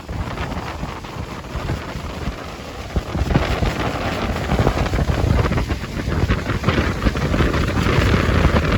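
Niagara Falls' water crashing down in a steady heavy rush, with wind buffeting the microphone. It grows louder about three seconds in.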